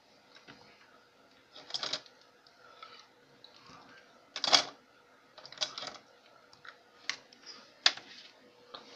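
Handling noise: a few irregular sharp clicks and knocks, the loudest about halfway through, over a faint steady hum.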